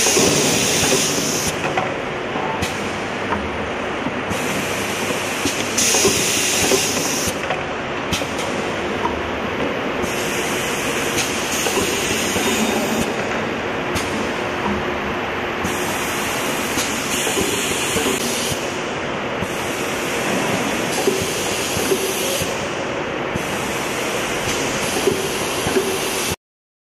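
Automatic foil transfer machine running, a steady mechanical clatter with repeated bursts of air hiss from its pneumatic actuators, often two in quick succession every few seconds. The sound cuts off abruptly near the end.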